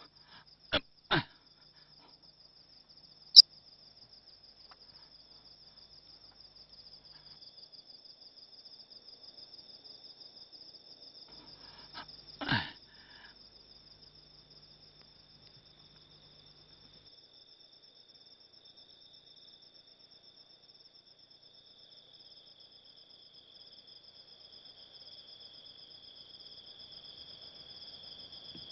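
Night insect chorus of crickets trilling steadily, two high pulsing trills at different pitches. A few sharp clicks come in the first few seconds, and a brief thud about twelve seconds in.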